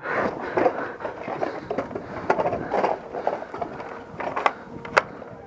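Handling noise from a body-worn action camera that has been knocked loose: rustling and scraping against the microphone, broken by irregular knocks and a few sharp clicks.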